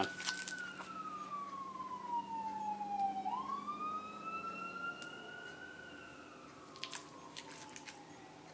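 Emergency-vehicle siren wailing, its pitch sliding slowly up and down in long rising and falling sweeps. A few sharp clicks from handling packaging come about seven seconds in.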